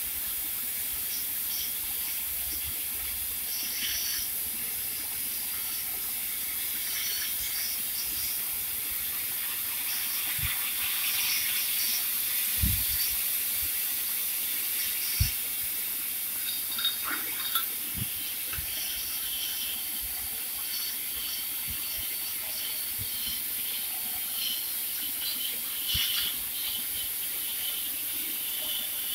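Steady hiss running throughout, with intermittent brief higher-pitched patches and a few soft knocks around the middle.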